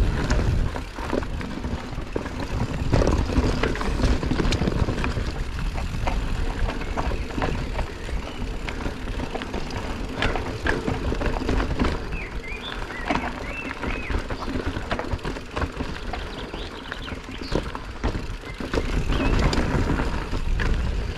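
Mountain bike ridden down a dirt trail: tyres rolling over rough ground with constant rattling and clattering of the bike, over a heavy low rumble. A few short squeaks come around the middle.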